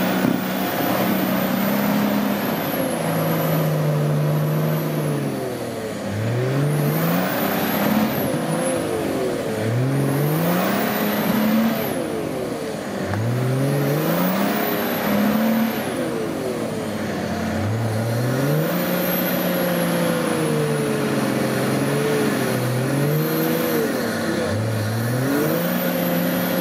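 Off-road 4x4's engine revving hard again and again, the pitch climbing and dropping back about five times as it is driven at an obstacle.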